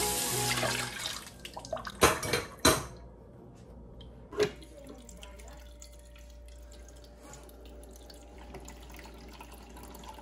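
Kitchen tap running water over a bowl being rinsed, shut off about a second in. A few sharp knocks of dishes follow, then a faint steady hum.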